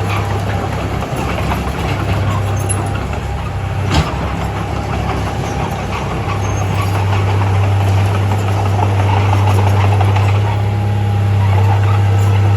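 Heavy diesel engine of earthmoving machinery running steadily with a deep hum, with a single sharp knock about four seconds in.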